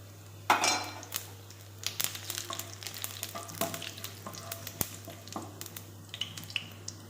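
Whole spices (cumin, cinnamon, cloves, cardamom) sizzling as they roast in hot Dalda in a pan, being stirred, with many sharp clicks of the utensil against the pan. The loudest clatter comes about half a second in.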